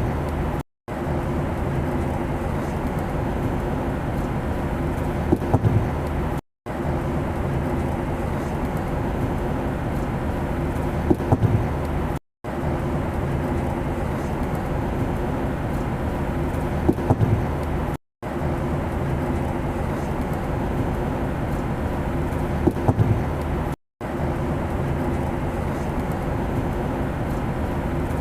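Steady airplane drone, a dense rushing noise with a low hum underneath. It is a short loop that breaks off in a brief silence about every six seconds, with a few light knocks just before each break.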